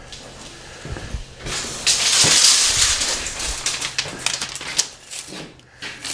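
Steel tape measure being pulled out, a loud zipping rattle for about two seconds, with clicks and knocks of handling around it.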